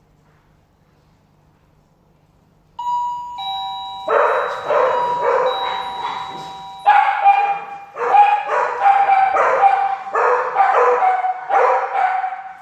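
Doorbell chime rings a two-note ding-dong about three seconds in, its tones ringing on for a few seconds. A second later dogs set off barking at the bell in a rapid, continuous run of barks.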